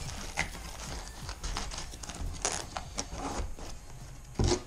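Small cardboard boxes and packaging being handled on a workbench: scattered rustles and light clicks, with one louder knock near the end.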